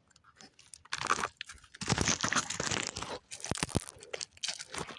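Close rustling and crunching in irregular bursts, starting about a second in and loudest in the middle, like movement against the microphone or through dry brush.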